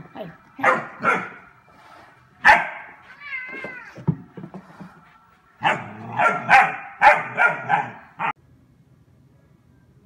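German Shepherd puppy barking at a cat in short, high-pitched barks: a few single barks, a short wavering cry, then a quick run of about six barks that cuts off suddenly about eight seconds in.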